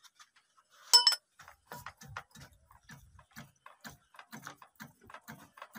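Spanner clinking and tapping on the metal fittings of an old stationary diesel engine, with one loud ringing metallic clink about a second in, then a run of lighter clicks and knocks.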